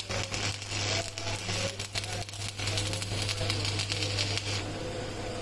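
Stick welding on steel chain links: the electrode arc crackles and sizzles steadily over a steady low hum.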